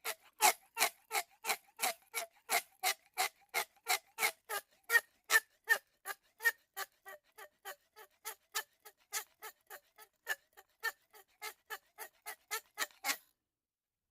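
Background music built on a steady ticking beat: short, clicky pitched notes about four a second. The beat breaks off about a second before the end.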